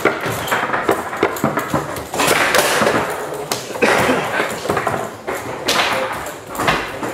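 Foosball play on a Tecball table: a string of sharp clacks and knocks as the ball is struck by the figures and the rods are jerked against their stops.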